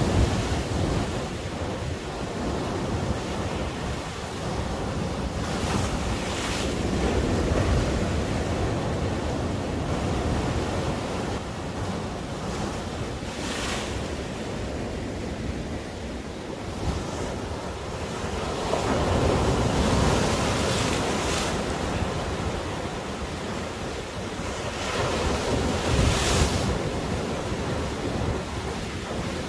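Sea waves breaking and washing onto a sandy beach, swelling and easing every several seconds, with sea wind rumbling across the microphone.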